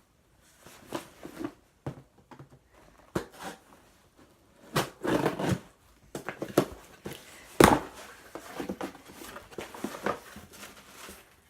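A cardboard box being opened and its contents handled: irregular rustling and scraping with short pauses, and a sharp knock about two-thirds of the way through.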